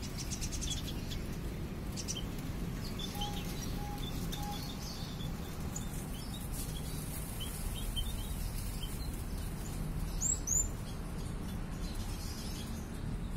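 Small local Indonesian finches (munias) chirping in an aviary: many short high chirps throughout, with a couple of louder sweeping calls about ten seconds in.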